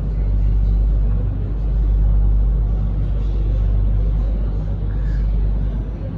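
A steady low engine rumble with a constant hum, running evenly throughout.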